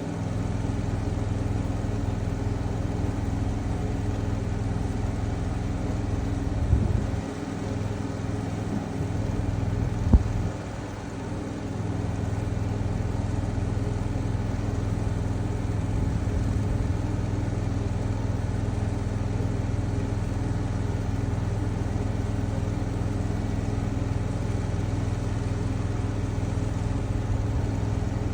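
An engine running steadily at constant speed, with two short sharp sounds about seven and ten seconds in, each followed by a brief drop in level.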